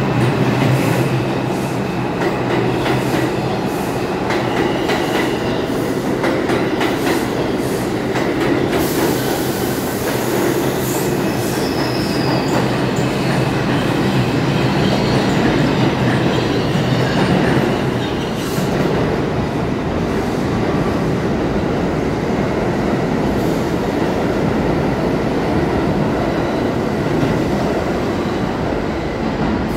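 R142 subway train leaving the station: the traction motors hum as it pulls out and the wheels clatter over rail joints. About nine seconds in comes a brief wheel screech, and then a steady loud rumble of train noise echoing in the tunnel and station.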